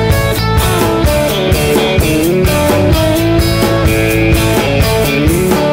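Rock band playing an instrumental passage without vocals: a lead guitar holds and bends notes over bass and a steady drum beat.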